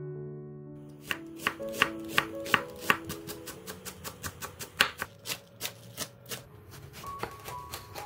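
Chef's knife chopping onion and green onion on a wooden cutting board. It makes a run of quick, sharp taps, about three to four a second, that stops about six seconds in. Soft piano music plays underneath.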